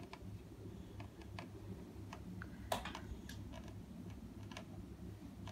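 Light, scattered clicks and taps of plastic Play-Doh tools and a plastic toy press being handled, with one sharper click about halfway through.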